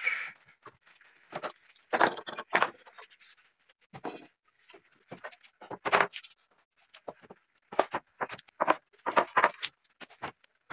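A circular saw's noise cuts off right at the start, then wooden boards are handled on a workbench: scattered knocks and scrapes with short gaps between them.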